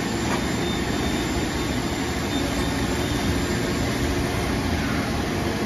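Machine-shop machinery running steadily, a constant hum and hiss with no pauses.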